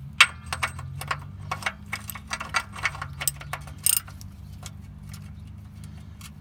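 Ratchet wrench clicking in a quick, uneven series of sharp ticks as a bolt is snugged down, stopping about four seconds in.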